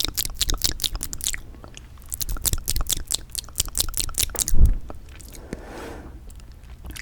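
Close-miked chewing of sundae (Korean blood sausage): rapid, wet mouth clicks in two runs with a short pause between. A low thump about four and a half seconds in, then quieter chewing.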